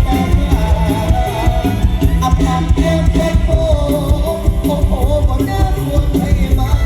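Loud, amplified Isan stage-show music: a fast, heavy drum beat with a wavering lead melody over it.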